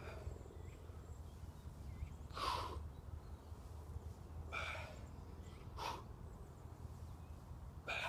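A man's hard, breathy exhalations, three short breaths a second or two apart, from the strain of squatting with a heavy log held overhead, over a faint steady low rumble.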